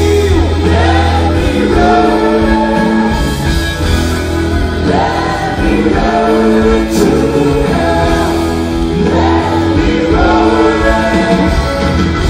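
Live rock band performing with lead and backing vocals over a steady bass line, heard from within a stadium crowd.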